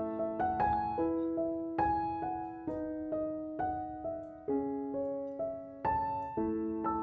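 Background music: a piano playing a slow melody, each note struck and then fading, about two notes a second.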